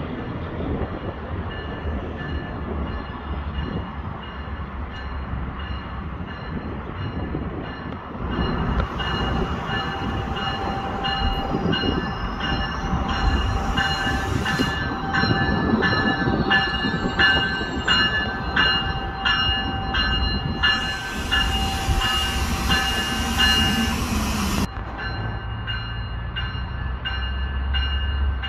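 Diesel GO Transit commuter train approaching with a low rumble. Through the middle a bell rings steadily at about two strokes a second. It stops abruptly about 25 seconds in, along with two bursts of high hiss.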